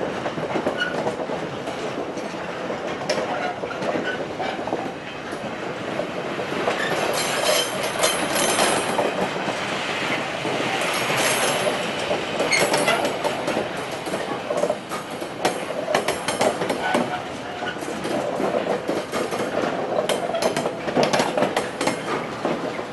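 Container freight train's wagons rolling past close by, with a steady rumble of wheels on rail and an uneven run of clicks and clatter as the wheels cross rail joints.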